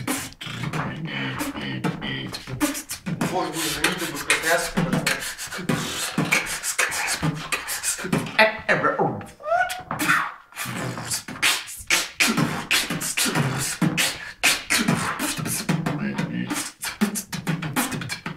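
A person beatboxing: a fast, continuous run of mouth-made kick, snare and hi-hat clicks mixed with short vocal hums and buzzes.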